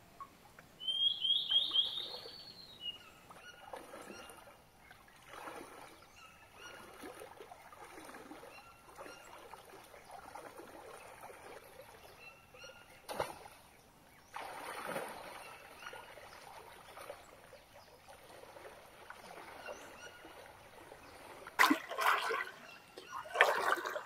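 Creek water splashing and trickling in irregular bursts. About a second in, a bird gives a quick run of rising high notes. A few louder sharp noises come near the end.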